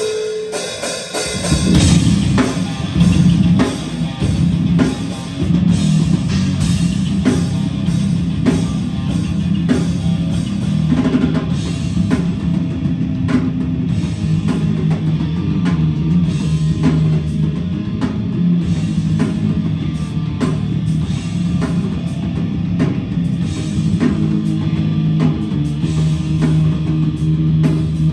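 Heavy metal band playing live: distorted electric guitar, bass guitar and a drum kit pounding out a heavy riff. The sound is thinner for the first second or so, then the full band comes in about two seconds in.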